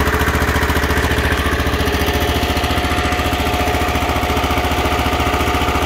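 Vintage Kohler 2.5 kW generator's engine running steadily under a load test, with an even, rapid exhaust beat. A steady whine comes up about a second in.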